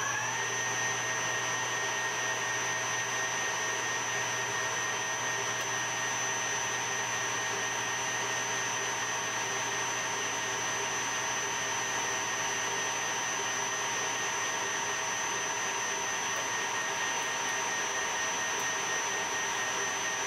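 Metal lathe running at a steady speed, its spindle just up to speed, with a steady high whine from the motor and gearing over a low hum.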